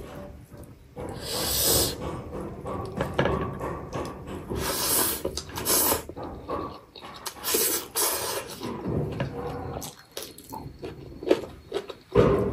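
Close-miked eating by hand: wet chewing and lip smacking, with several short sucking slurps about a second and a half in and again around five to eight seconds in.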